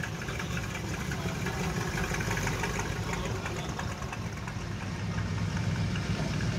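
Engine of a vehicle pulling slowly out, idling and low-revving, with the sound growing louder near the end as it comes closer.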